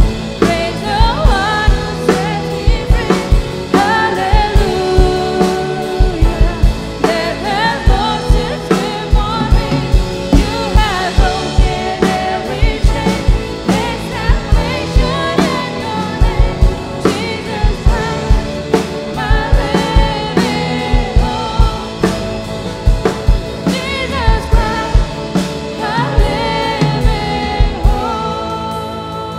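Live worship song: singers over a band, with a drum kit keeping a steady beat.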